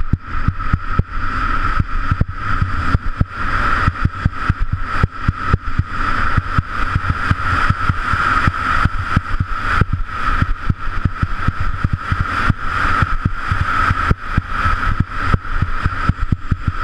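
Wind buffeting an action camera's microphone during a fast downhill ski run, a fluttering low rumble with irregular thuds. Over it is the steady scraping hiss of edges sliding over groomed snow.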